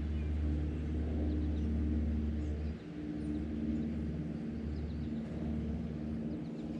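A small boat motor hums steadily and low, dipping briefly about three seconds in. Faint bird chirps sound above it.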